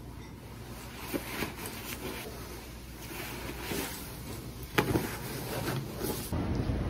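Rustling of a down puffer jacket and wool scarf being put on and adjusted close to the microphone, with scattered small clicks and one sharp click about five seconds in.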